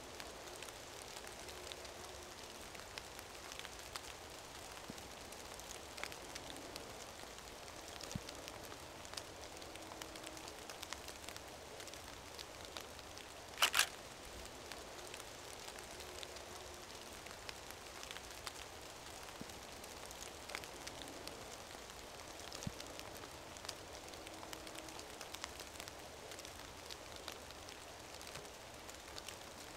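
Steady rain pattering on leafy trees, with many small drip ticks close by. About halfway through comes a single sharp double click, louder than anything else.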